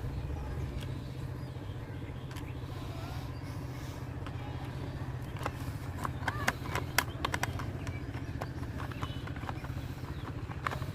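Small clicks and taps of screws and plastic parts being handled and fitted into a toy car, a cluster of them about halfway through and a few more near the end, over a steady low hum.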